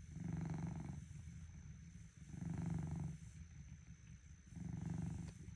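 Domestic cat snoring in its sleep: three buzzy, rumbling breaths about two seconds apart, with a softer rumble between them.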